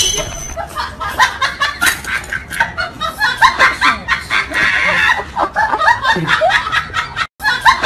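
Laughter: a person laughing in quick, repeated bursts, with a short break near the end.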